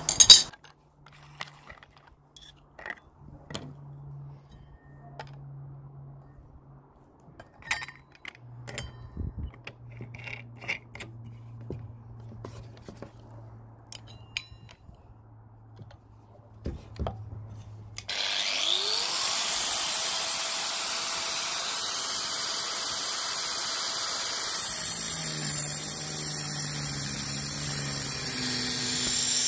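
Scattered clicks and taps of a cutting wheel being fitted and tightened on an angle grinder with a pin spanner. About 18 seconds in, the angle grinder starts suddenly and spins up. Some six seconds later its Graff cutting wheel bites into a steel bar, running steadily as it cuts through the metal and throws sparks.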